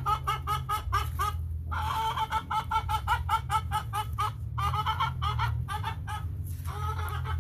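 A hen cackling: rapid runs of sharp, repeated clucks, about four to five a second, broken by short pauses. It is the loud cackle hens give after laying, here from a hen that has not laid today. A steady low hum runs underneath.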